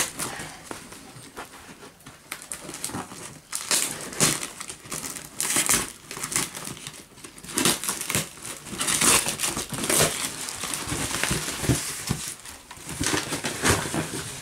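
Cardboard box and its clear plastic wrapping being pulled and torn open by hand, crinkling and rustling in irregular bursts.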